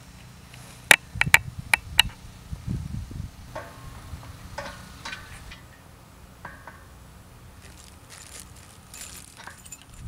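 Metal parts of a solar tracker frame clinking and knocking as they are handled: several sharp clinks in the first two seconds, then scraping and rustling as a crossbar is fitted onto the post. Wind rumbles low on the microphone throughout.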